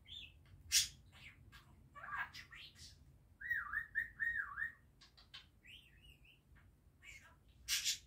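Budgerigar chattering: a quick, varied string of short chirps and clicks with sharp, loud chirps about a second in and near the end. Around the middle it gives three dipping whistles in a row.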